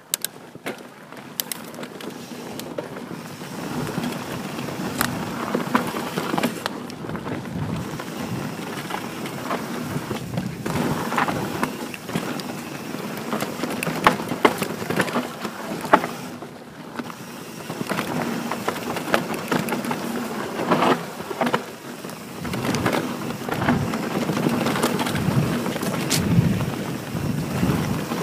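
Santa Cruz Bronson full-suspension mountain bike riding fast down a dirt forest trail. Its knobby tyres rumble over the dirt, with many sharp clicks and knocks as the bike rattles over roots and bumps. The noise grows louder a few seconds in as the bike picks up speed.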